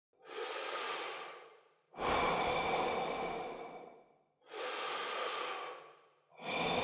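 Slow, deep human breaths in and out, each lasting about two seconds with short silences between them: three full breaths, the second the loudest, and a fourth beginning near the end.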